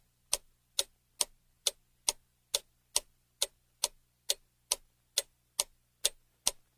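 Clock ticking sound effect, an even tick a little over twice a second, used as a countdown timer for guessing.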